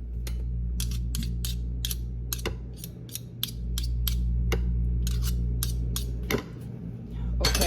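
Utensil clicking and scraping against a bowl as egg yolk filling is mashed and mixed: many short, sharp clicks, about two to three a second, thinning out in the middle. A steady low hum runs underneath.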